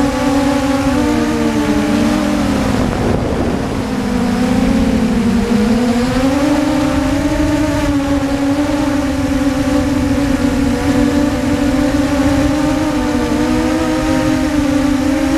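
Motors and propellers of a BPQ250 mini H-quad whining in flight, the pitch dipping about three seconds in and climbing back as the throttle changes, over a low rushing noise.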